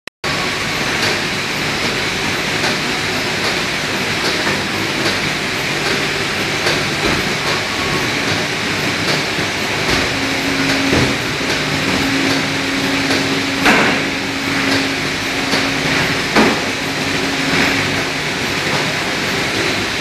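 Industrial bacon-slicing and continuous microwave cooking line running: a steady mechanical clatter with faint regular ticks. A steady hum joins about halfway, and a few louder knocks come in the second half.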